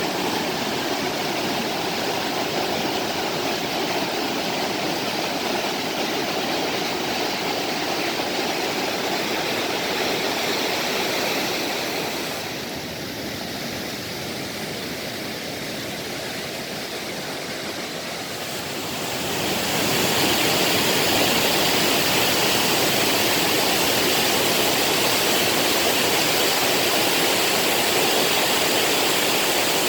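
Mountain valley stream rushing over rocks, a steady wash of water. It drops a little quieter for several seconds past the middle, then comes back louder for the last third.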